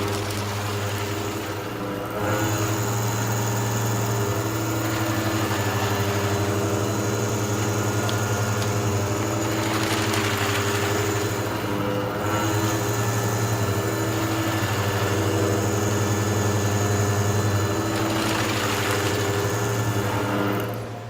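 A machine running steadily: a deep motor hum with a high whine over it that drops out briefly twice, and a hiss that swells and fades now and then.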